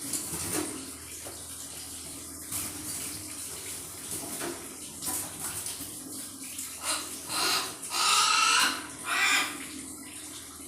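Water running and splashing as a hill myna is bathed, then the myna gives a few loud calls starting about seven seconds in.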